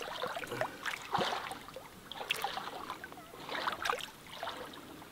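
A hand dipping and moving in shallow lake water at the shore, making a few irregular splashes and trickles.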